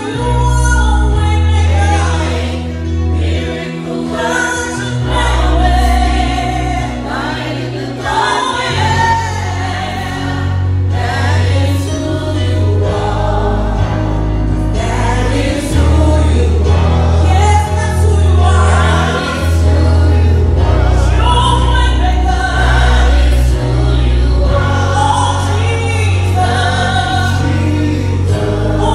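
A gospel worship song sung by a female lead singer with backing vocalists, over a band whose sustained bass notes change every second or two.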